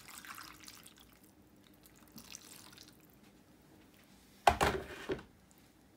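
Water poured from a jug into a roasting pan of meat and vegetables, splashing for about a second and again briefly around two seconds in. A loud clunk about four and a half seconds in.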